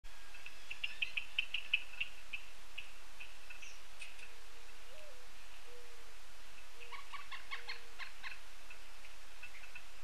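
Mourning dove singing its low cooing song from about halfway in: a longer first coo with a brief rise in pitch, then three shorter coos. Over it, small birds give quick high chip notes, fastest and loudest in the first two seconds, and another bird gives a quick run of harsher repeated calls near the end.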